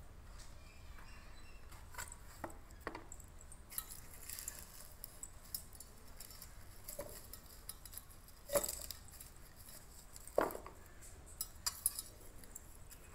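Onions and a small stainless steel bowl handled by a toddler, with a cardboard box: scattered light knocks and clinks, two of them louder in the second half.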